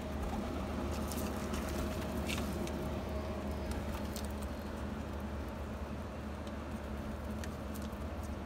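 Feral pigeons pecking at seeds on a window ledge: scattered light taps and clicks, thickest in the first few seconds, over a steady low hum.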